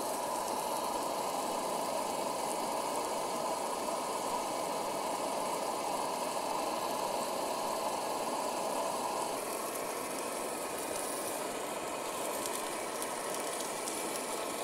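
Optimus Polaris camp stove's gas burner running steadily under a frying pan, with a steak sizzling in the pan. The sound eases slightly about nine and a half seconds in.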